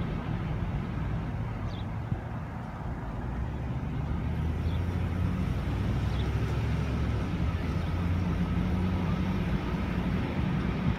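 Car moving slowly, a steady low engine and road rumble.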